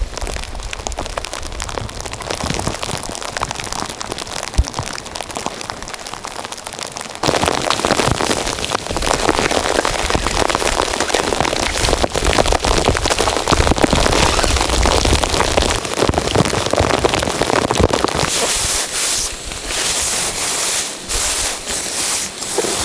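Steady patter of rain on a surface that jumps up louder about seven seconds in, then turns brighter and more uneven near the end.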